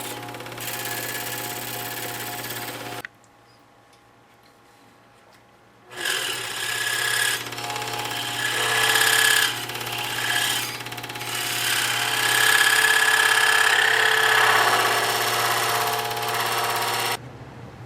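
Scroll saw running and its blade cutting through quarter-inch oak board, a steady buzzing hum with the hiss of cutting. It drops away about three seconds in, starts again about three seconds later, and falls off again near the end.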